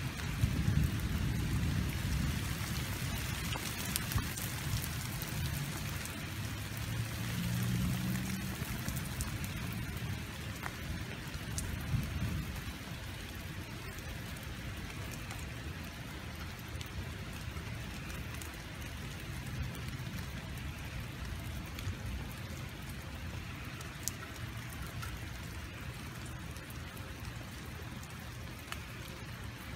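Steady rain falling on wet ground and gravel, with a low rumble through the first dozen seconds that then eases off, leaving an even hiss of rain.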